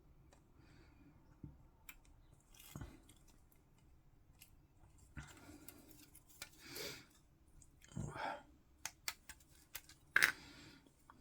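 Plastic miniature parts being clipped off the sprue: scattered sharp clicks and snips with short rustles of the plastic frame being handled, the sharpest snip about ten seconds in.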